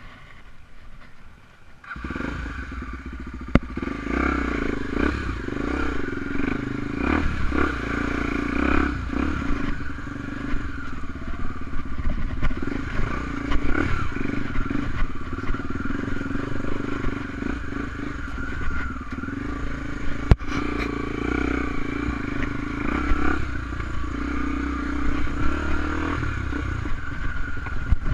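Honda XR250 Tornado enduro motorcycle's single-cylinder four-stroke engine being ridden off-road. The engine comes in about two seconds in and runs on steadily, with a couple of sharp clicks along the way.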